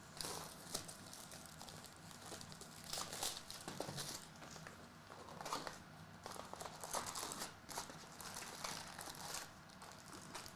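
Trading card pack wrappers crinkling and being torn open by hand, in irregular rustling bursts as a box of Topps Chrome packs is opened.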